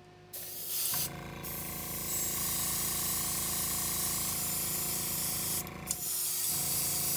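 Airbrush hissing as it sprays a thin glaze of corn syrup and water, over the steady pulsing hum of its small air compressor. Both stop briefly about six seconds in, then start again.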